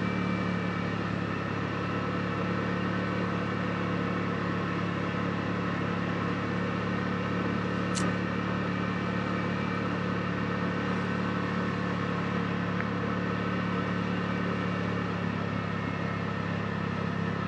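Side-by-side UTV engine running steadily at a constant cruising pace, with one sharp click about halfway through.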